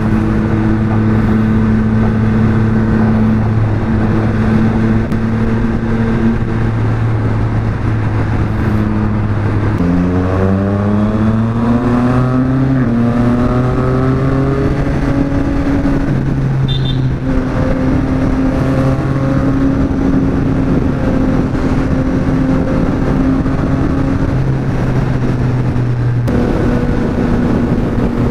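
Yamaha XSR900's three-cylinder engine running through an aftermarket Orion exhaust, holding steady revs while riding. About ten seconds in the revs drop, then climb over a few seconds as the bike accelerates, and settle back to a steady cruise.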